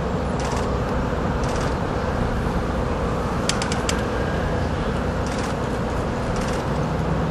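Firework burning with a steady hiss and recurring bursts of crackling, and a quick run of sharp pops about three and a half seconds in.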